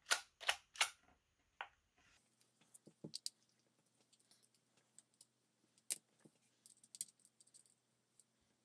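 Clicks and taps of a Byrna HD air pistol's polymer frame and small parts being handled and fitted during reassembly: three sharp clicks in the first second, then scattered fainter clicks and ticks.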